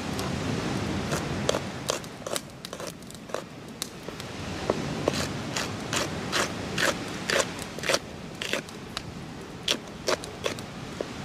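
Knife chopping scallion and other vegetables on a plastic cutting board: irregular sharp taps, several a second at the busiest, about halfway through.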